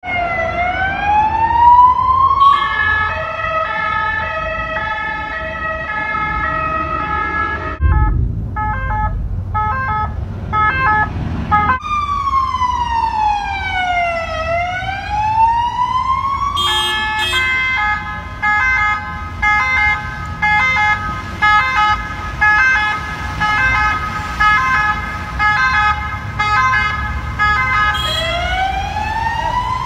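Spanish ambulance electronic siren switching between modes: a wail that rises and falls, a two-tone hi-lo, and a faster alternating tone, then back to the hi-lo, with the wail returning near the end. A low rumble runs underneath.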